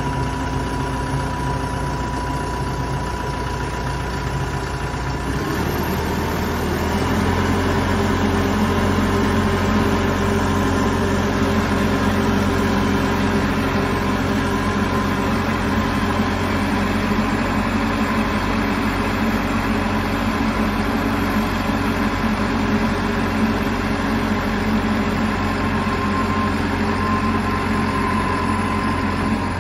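SkyJack ZB2044 telehandler's Cummins diesel engine idling, then speeding up about five seconds in and holding a steady higher speed while the hydraulics raise the boom.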